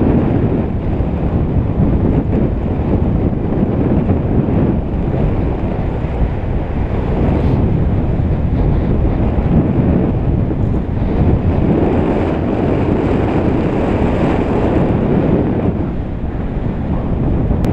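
Steady rush of flight airflow buffeting a paraglider's harness-mounted camera microphone: low wind noise with no let-up.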